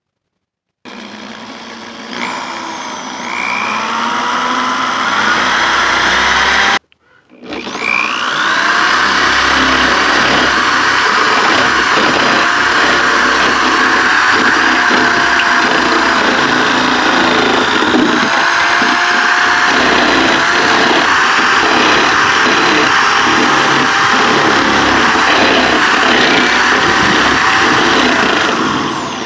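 Power drill spinning a coring bit that cuts dry into cement backer board, a loud grinding whine. It spins up about a second in, stops briefly about a quarter of the way through, then restarts and grinds steadily, winding down with a falling whine at the very end.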